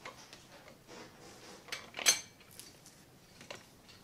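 Small metallic clicks and clinks of a training wheel's steel bracket and axle nut being handled and hand-tightened on a child's bike, with one sharper clink about two seconds in.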